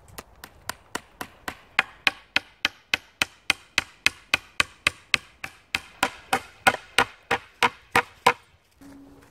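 A nail being hammered with an axe head into crossed dead-wood poles: about thirty sharp blows at roughly three a second, light taps for the first couple of seconds to start the nail, then harder strikes, stopping shortly before the end.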